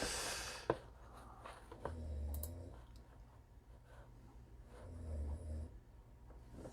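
Faint handling noises of trading cards and their packaging: soft rustling with one sharp click under a second in and a few fainter clicks.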